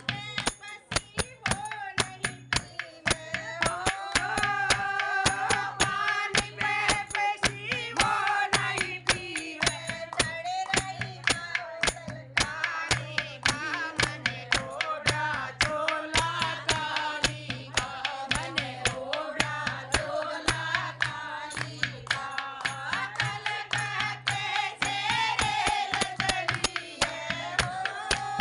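Women singing a Hindi devotional bhajan together, with a lead voice carrying the melody over a steady rhythm of hand claps.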